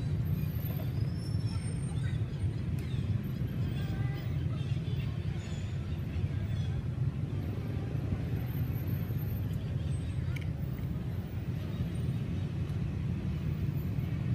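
A steady low rumble throughout, with faint, scattered high chirps above it.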